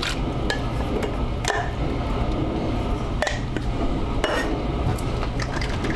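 Irregular sharp clinks and knocks of a metal can and utensil against a food processor bowl as drained Rotel tomatoes are tipped in, over a steady low hum.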